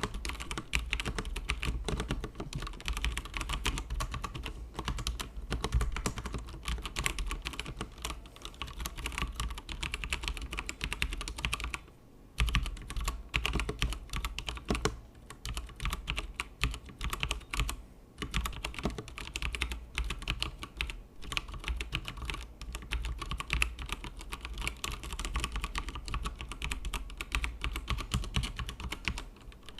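Fast continuous typing on a Tecware Phantom mechanical keyboard with stock pre-lubed Outemu Brown tactile switches, a dense run of key clacks with a brief pause about twelve seconds in and another about eighteen seconds in.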